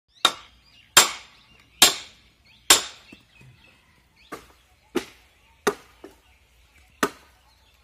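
Iron hand tools striking green bamboo poles as they are split and chopped: eight sharp blows a little under a second apart, the first four the loudest.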